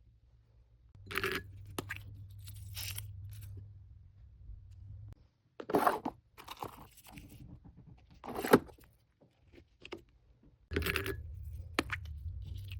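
Packaging and small items being handled: crinkling and tearing of wrapping, with scrapes and light clinks as things are moved. The rustles come in short separate bursts every second or two, over a low hum that drops out for a few seconds in the middle.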